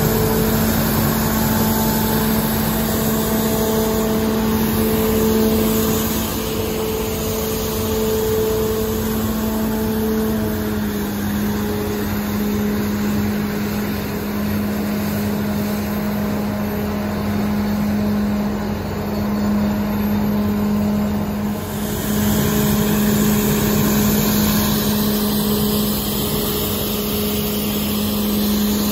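TYMCO 600 regenerative-air street sweeper working: a steady loud drone of the truck and blower with a held whine, over the hiss and scrape of the spinning gutter broom. The pitch steps slightly lower about ten seconds in and then stays level.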